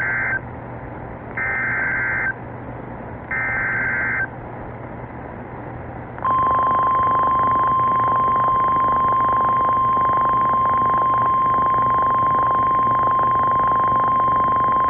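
NOAA Weather Radio emergency alert: three short bursts of warbling SAME digital data tones (the EAS header, sent three times), then, about six seconds in, the long steady 1050 Hz warning alarm tone that signals a warning is about to be read, here a severe thunderstorm warning. A constant radio hiss runs underneath.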